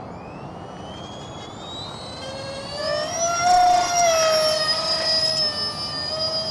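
Twin electric ducted fans of a radio-controlled model Learjet whining on a fly-by. The high whine rises in pitch and grows louder as the jet comes close, and is loudest and steady from about three to five seconds in.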